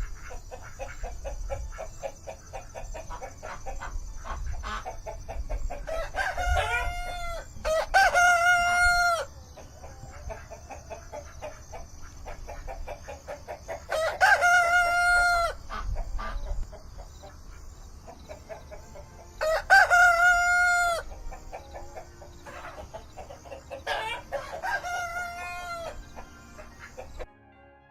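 Rooster crowing about five times, each a long held call, three of them loud, with clucking in between. The sound cuts off just before the end.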